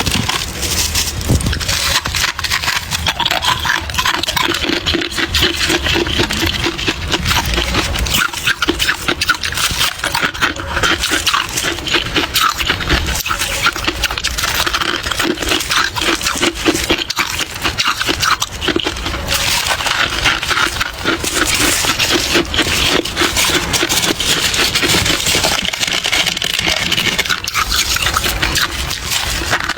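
Close-miked chewing of freezer frost, a soft ice: rapid, continuous crackling crunches in the mouth.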